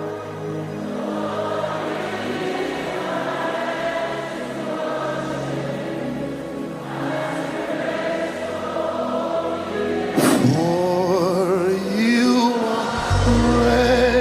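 Gospel worship music: a choir and congregation singing over sustained keyboard chords. About ten seconds in, a solo voice enters with wavering held notes, and deep bass comes in near the end.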